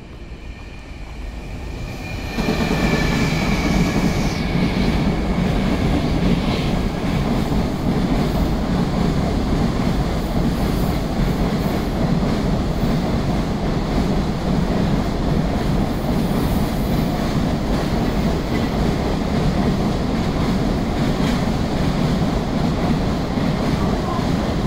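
Container freight train hauled by a JR Freight EF210 electric locomotive passing on a nearby track. It arrives suddenly about two seconds in with a high whine that fades within a few seconds, then the wagons roll by in a steady, loud rolling noise.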